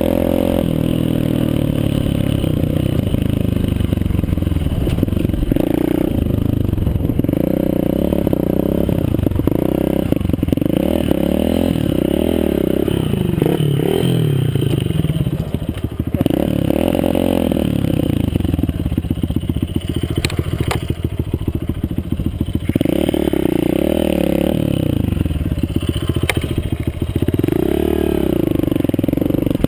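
Mini motocross bike's engine revving up and dropping back over and over as it is ridden around a dirt track, with a couple of sharp clicks partway through.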